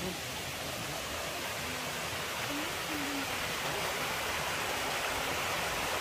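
Waterfall: a steady rush of falling water that swells slightly over the few seconds.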